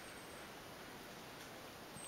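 Quiet steady outdoor background hiss with no distinct event.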